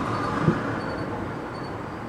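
Rumble of a passing vehicle fading away, with one short dull thump about half a second in.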